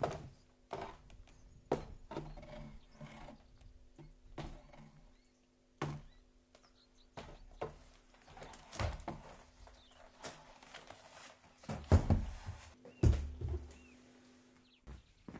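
Layered foley sound effects: a run of knocks and thumps, the two heaviest about twelve and thirteen seconds in, over a low steady tone.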